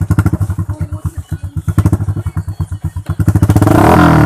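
Honda XRM 125's single-cylinder four-stroke engine, otherwise stock, running through an aftermarket Daeng muffler pipe. It idles with a steady pulsing exhaust beat, then is revved up sharply about three seconds in.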